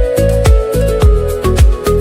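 Background music with a steady beat: a deep kick drum about twice a second under a sustained melody.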